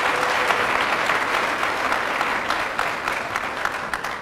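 Audience applauding with many hands clapping, tapering off near the end.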